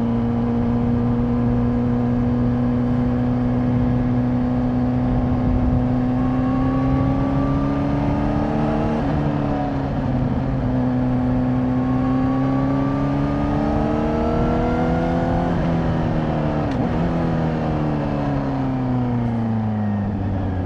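Honda CBR600RR's inline-four engine on its stock exhaust, heard from the rider's seat: running steadily, then rising through the revs with a gear change about nine seconds in, rising again, and falling as the bike slows in the last few seconds.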